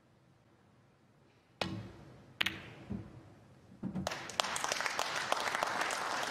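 Snooker shot: a sharp click of the cue tip on the cue ball, a second click as the cue ball strikes a red, then low knocks of balls on the cushion and the red dropping into the pocket. Audience applause starts about four seconds in.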